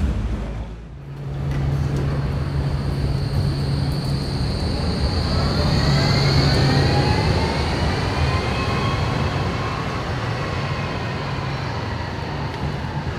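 A Zurich Tram 2000 tram passing close by: a steady low electric hum, with a whine that rises and then falls in pitch as it goes past.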